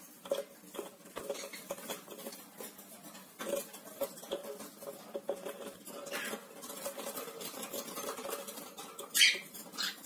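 Cockatiels moving about a cage: claws scratching and tapping on wooden perches and wire, with small clicks throughout and one short, loud burst about nine seconds in.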